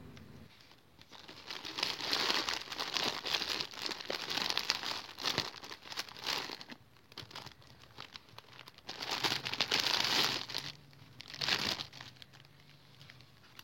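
Packaging crinkling and rustling as skeins of yarn are handled, in a long stretch of bursts and then two shorter ones near the end.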